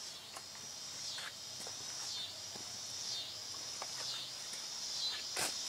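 Putty spreader scraping across a primed plastic bumper in repeated strokes about a second apart, spreading and feathering out glazing putty over cracks and imperfections.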